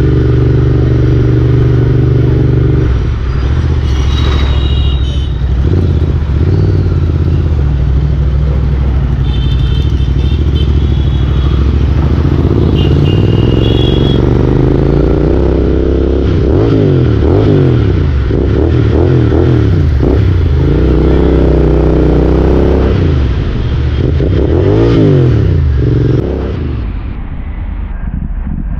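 Motorcycle engine running under way, its pitch rising and falling repeatedly as it accelerates and eases off, with three short high-pitched beeps.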